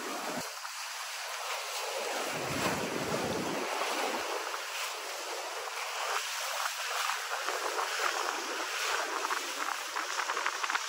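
Steady hiss of rain and wind, with gusts buffeting the microphone during the first few seconds.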